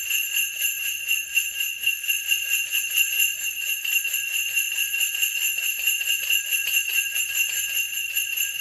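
Sleigh bells shaken and struck in a quick, even rhythm: a continuous jingle with clear-cut, articulate strokes.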